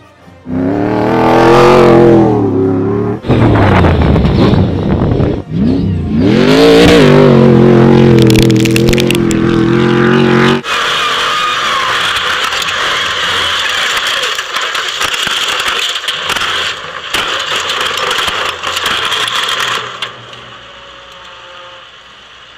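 A Stadium Super Truck's race engine revving hard under throttle for about ten seconds, its pitch climbing, dropping and climbing again as it accelerates past. It then cuts off suddenly, giving way to a loud steady rushing hiss with scattered crackles that fades near the end.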